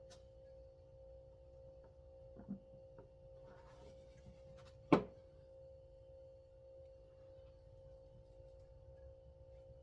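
Small parts of a chainsaw recoil starter being handled: a light knock about two and a half seconds in, a brief rustle, then one sharp click about five seconds in, over a steady humming tone.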